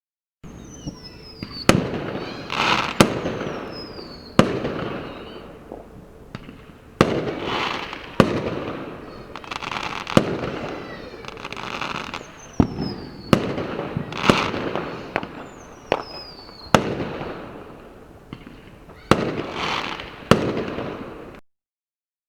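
Fireworks going off: a run of sharp bangs a second or two apart, each trailed by crackling, with a few whistles falling in pitch. It stops suddenly near the end.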